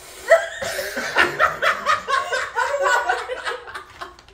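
A person laughing in a long run of quick, high-pitched bursts, several a second, starting a moment in and dying away near the end.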